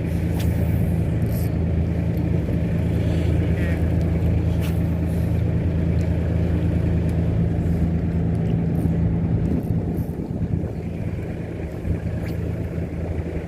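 A fishing boat's engine running steadily, a low hum that eases slightly about ten seconds in.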